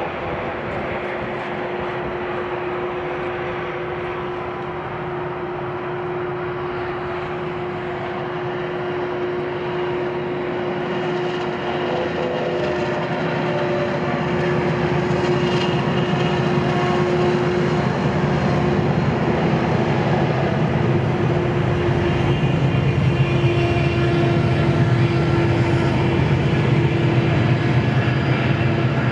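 Union Pacific diesel locomotives running a double-stack container freight train: a steady engine drone that grows louder as the locomotives come up and pass, then the deep rumble of the stack cars rolling by.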